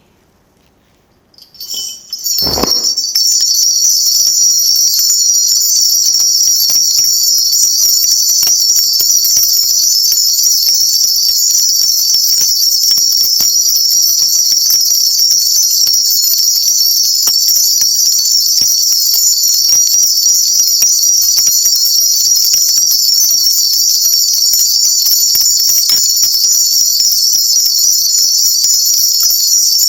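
A shaman's bell rattle shaken continuously: a loud, steady, bright jingling that starts about two seconds in, just after a thump. It is the kind of bell-shaking a Korean shaman uses to call the spirits before reading a fortune.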